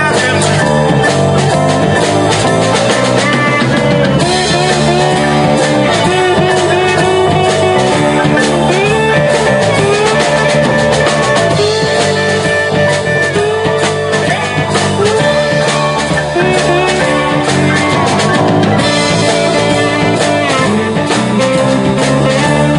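Live rock band playing loudly, with electric guitars and a drum kit.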